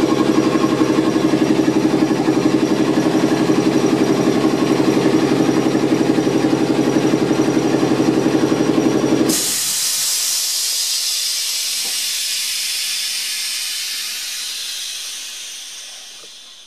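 Air compressor of a class 451 electric multiple unit running with a steady rhythmic pulsing hum, then cutting out abruptly about nine seconds in. A loud hiss of released air follows and fades away near the end.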